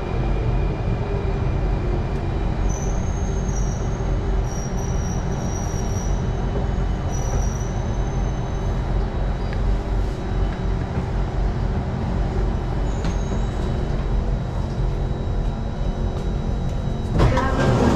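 Singapore MRT train running with a steady low rumble, with faint high-pitched wheel squeal for several seconds near the start. A louder, rougher rush of noise sets in near the end.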